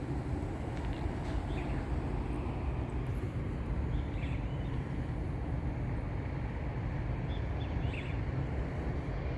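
A steady low rumble of outdoor background noise, with a few short bird chirps at intervals.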